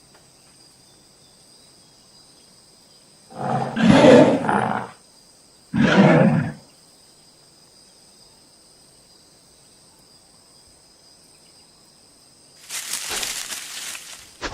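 Two animal roars added as sound effects, a longer one and then a shorter one about a second later. Near the end comes a shorter, noisier burst. A faint steady hiss with a thin high whine runs underneath.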